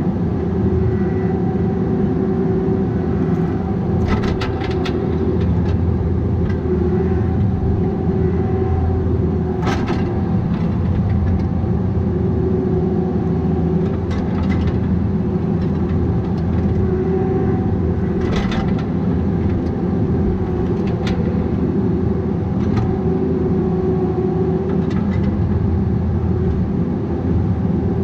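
Bobcat 337G mini excavator's diesel engine running steadily under work, with sharp knocks and clanks every few seconds.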